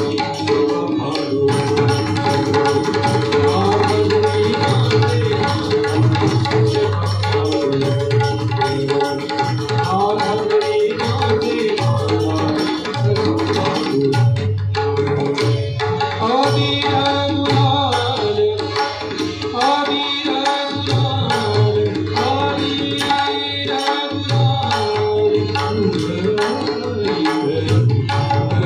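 Tabla and mridang playing a fast, dense rhythm over a steady held drone, an instrumental stretch of a Marathi devotional abhang.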